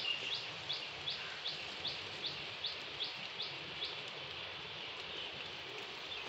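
A bird calling a rapid series of short rising chirps, nearly three a second, which stops about four seconds in, over a steady hiss of rain.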